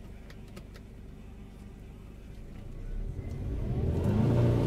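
Pickup truck's engine heard from inside the cab, ticking over low and then revving up hard from about three seconds in as the truck works to pull free of deep mud.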